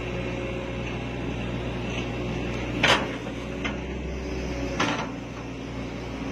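Hitachi hydraulic excavator's diesel engine running steadily as its arm and bucket work in the mud, with two sharp clanks about three and five seconds in and a lighter one between them.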